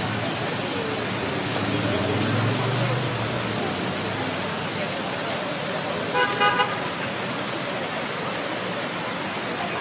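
Busy city-square ambience: a steady wash of traffic and distant voices, with a vehicle engine swelling past low in the first few seconds. A car horn toots twice in quick succession about six seconds in.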